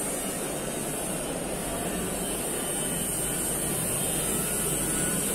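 Steady background din of a large exhibition hall, with a constant high hiss and no distinct events.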